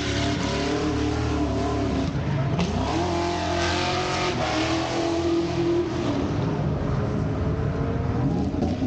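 A car engine revving up and down while drifting, its pitch dropping about two seconds in and climbing back, over the hiss and squeal of sliding, spinning tyres.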